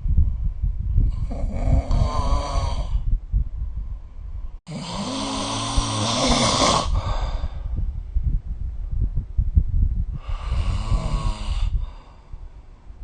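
A sleeping person snoring: three loud snores about four seconds apart, the middle one the loudest, with a low pulsing flutter between them that fades near the end.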